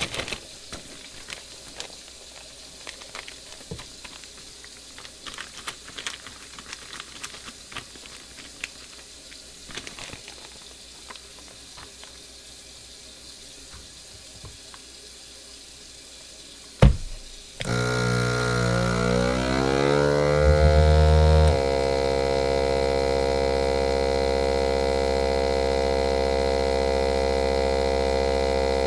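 Light rustling and clicking as a plastic bag is handled. About 17 seconds in, a sharp click comes as a vacuum sealer is closed, and its pump starts: the hum rises in pitch for a few seconds as it draws the air out of the bag, then holds at a steady hum that cuts off suddenly near the end when the cycle finishes.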